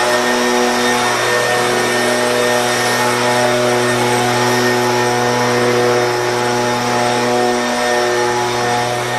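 Leaf blower running steadily at full speed, with a steady hum under a loud rush of air. Its air is forced through a shop-vac tube squeezed onto the nozzle to blow grass seed and debris out of a clogged tractor radiator. At the very end it starts to wind down.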